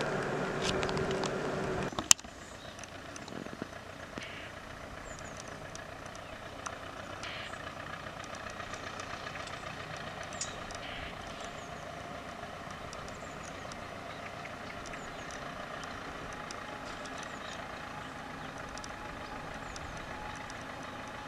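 A distant electric passenger train running across the valley: a faint, steady rumble with a few faint high chirps over it. For the first two seconds a louder mechanical hum with steady tones is heard, cut off suddenly by a sharp click.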